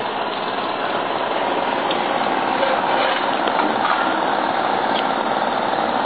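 Engines of heavy tree-removal machinery (truck-mounted crane and wood chipper) running steadily.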